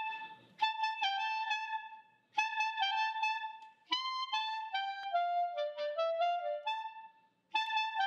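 Solo clarinet playing a short unaccompanied melody in separate notes: a phrase played twice with short pauses between, then a longer phrase that steps downward in pitch, and the opening phrase starting again near the end.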